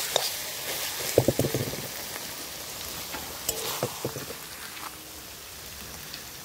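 Spiced masala of raw jackfruit and goat fat sizzling as it is stir-fried in a kadai. A metal spatula scrapes and knocks against the pan: a quick run of clicks about a second in, then a few single knocks before the five-second mark.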